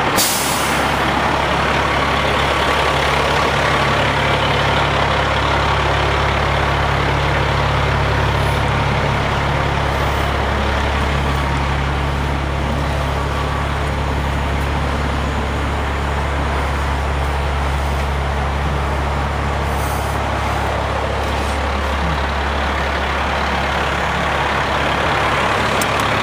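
Fire truck engine idling steadily with a low, even hum. A short burst of hiss comes right at the start.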